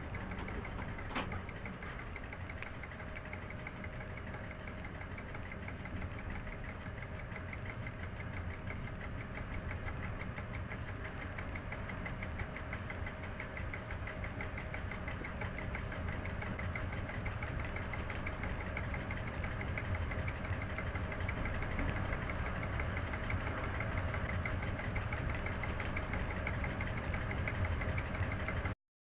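Class 731 diesel locomotive's engine running steadily, heard inside the cab, with a fast even throb and a steady whine over it. A single short click about a second in, and the sound cuts out briefly at the very end.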